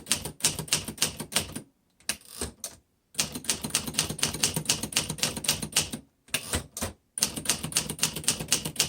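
Typing on a 1951 Remington Quiet Riter manual typewriter: quick runs of key strikes, several a second, broken by brief pauses between bursts.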